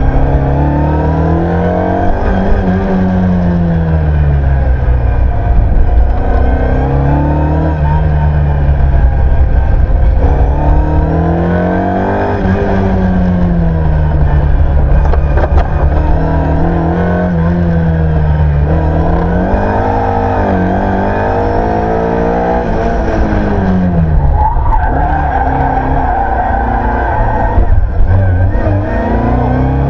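Ford Escort Mk1 rally car's engine heard from inside the cabin, revving hard and falling back over and over as the car accelerates, brakes and shifts through a run of corners, with a deep dip and climb again near the end.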